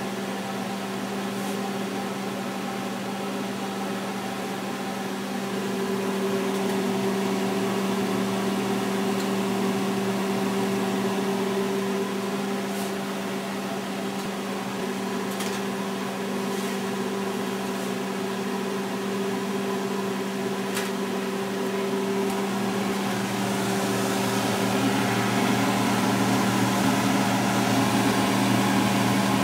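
A steady machine hum with a fan-like hiss, getting a little louder partway through, with a few faint clicks.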